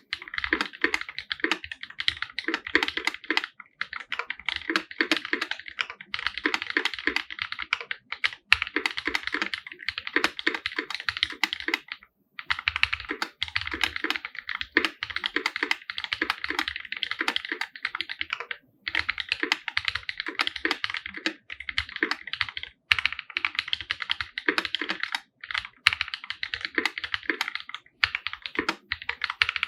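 Fast, continuous typing on a custom 50% mechanical keyboard with an aluminum case, tactile Holy Panda switches and GMK keycaps: a dense stream of keystrokes broken by a few brief pauses.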